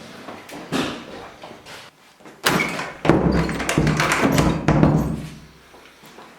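Footsteps of someone running away inside the house: a few separate thuds, then a loud rapid run of heavy footfalls from about two and a half seconds in, fading out near the end.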